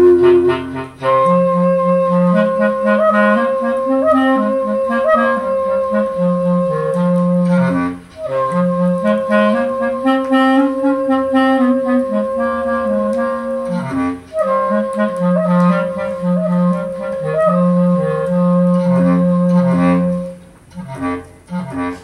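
Jazz clarinet recording played back from vinyl over a hi-fi system. Long held clarinet notes sit over a moving lower line, with short breaks about eight and fourteen seconds in, and the music dies away near the end.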